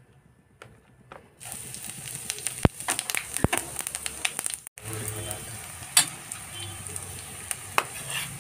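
Cumin seeds and whole spices sizzling and crackling in hot oil (a tadka). The sizzle starts about a second and a half in as the seeds hit the oil, and steady crackling continues with a few sharp clicks and pops.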